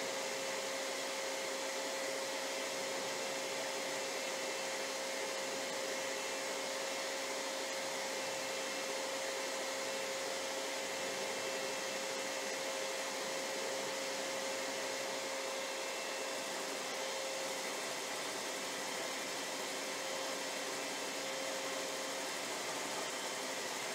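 Electric stand mixer running steadily, whisking a base of heavy cream, half-and-half and condensed milk: an even motor whir with one constant tone through it.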